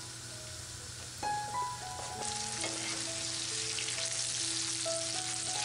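Gnocchi sizzling in brown butter in a frying pan, the sizzle growing louder about two seconds in as they are turned with a metal spoon. Soft background music with slow held notes plays underneath.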